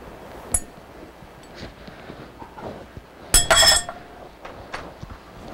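Egg mixture being poured from a plastic bowl into a glass baking dish, with a single click about half a second in and a brief clatter of ringing clinks against the dish about three and a half seconds in.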